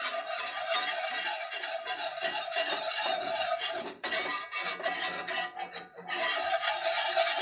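Wire whisk scraping quickly around a cast iron skillet, stirring a thick butter-and-flour roux paste to break up its lumps: a continuous scratchy rasping with two brief pauses, about four and six seconds in.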